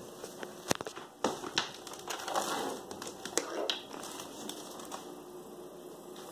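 A few light knocks and clicks with short bouts of rustling over the first four seconds or so, then only faint background.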